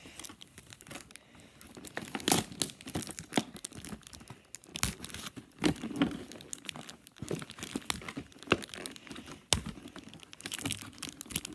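Clear plastic packaging crinkling and tearing as toy parts are pulled from their wrapping, with irregular rustles and sharp clicks.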